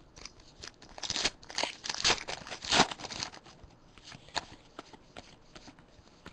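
Basketball trading cards being flicked and shuffled through by hand: a quick run of crisp card-on-card snaps and paper rustles, busiest and loudest about one to three seconds in, then lighter and sparser.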